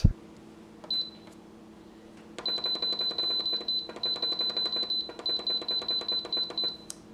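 Instant Pot electric pressure cooker's control panel beeping as its plus button is pressed to raise the cooking time toward 30 minutes: a single high beep about a second in, then a rapid run of high beeps, about five a second, with two short breaks.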